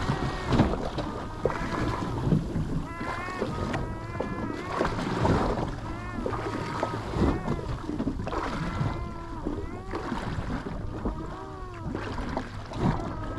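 Fishing boat's engine running steadily at sea, under many short rising-and-falling calls scattered throughout.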